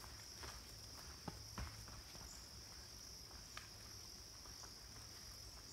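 Steady, faint high-pitched drone of an insect chorus in the forest. A few soft, sharp snaps stand out over it, two close together about a second in and one more in the middle.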